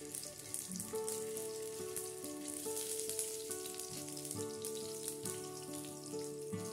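Chicken seekh kebabs shallow-frying in a little oil in a nonstick pan, with a fine, steady sizzle and crackle. Soft background music of slow held notes plays underneath.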